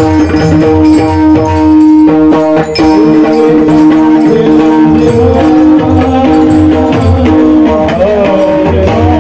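Marathi devotional bhajan music: a sustained melodic drone with small cymbals and a drum keeping a steady beat. From about three seconds in, a long wavering melodic line (an alaap) rises and bends over it.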